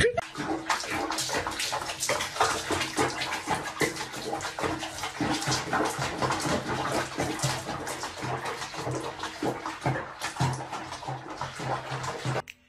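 Water splashing and sloshing in a bathroom sink as a cat is bathed in foamy water: a dense run of small irregular splashes that cuts off abruptly near the end.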